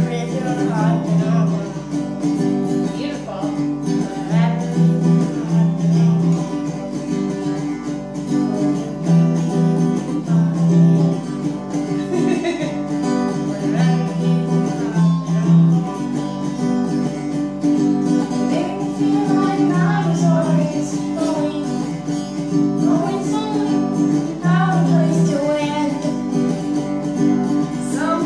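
A boy singing a slow folk-pop song over steadily strummed acoustic guitar chords.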